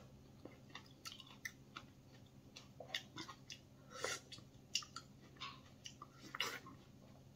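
Quiet close-up chewing and lip-smacking of a person eating a small plum, with scattered soft wet clicks and smacks, a couple of them louder about four and six and a half seconds in.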